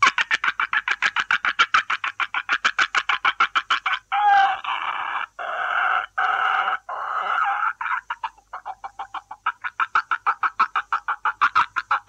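A man's vocal imitation of a nest of young herons calling as the parent comes in with food, made by sucking air in. It begins as a rapid stuttering chatter of about seven or eight clicks a second. A few longer harsh squawks break it about four seconds in, and then the fast chatter returns.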